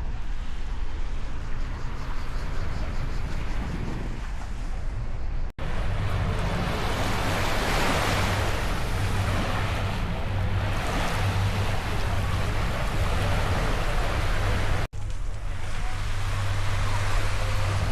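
Mediterranean sea waves washing against the shore, swelling and ebbing, with wind on the microphone. A steady low hum runs underneath in the second half, and the sound cuts out abruptly twice.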